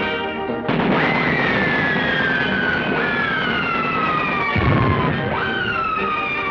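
Cartoon sound effect of artillery shells whistling overhead: three long whistles, each jumping up in pitch and then falling slowly, over a rushing noise. A low boom comes a little past the middle.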